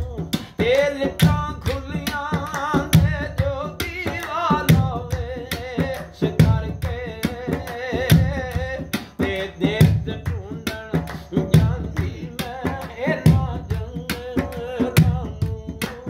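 A voice singing in wavering, ornamented lines over hand drumming on a large metal pot, with sharp slaps and a deep thump about once a second.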